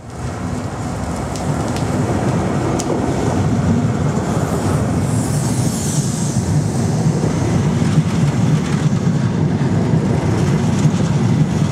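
InterCity 125 (Class 43 HST) passing close at low speed: the leading power car's diesel engine running as it draws level, building over the first couple of seconds, then the steady rumble of the Mark 3 coaches rolling by on the track.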